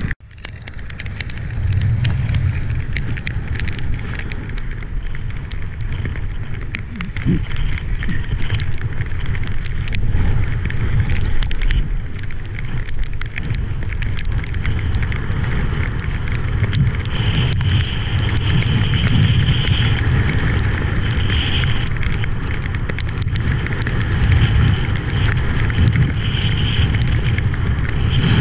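Strong wind buffeting an action camera's microphone in a low rumble, with choppy sea water rushing and splashing under a wing-foil board. A thin high whistle comes and goes in the second half.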